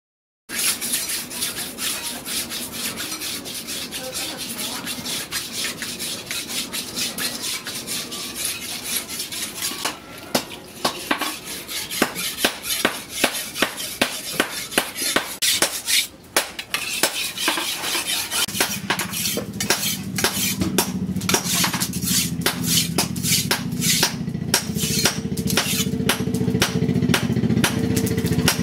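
A curved steel knife blade being sharpened on a whetstone: continuous scraping at first, then distinct scraping strokes about two a second from roughly a third of the way in. About two-thirds through, a steady low engine hum comes in underneath.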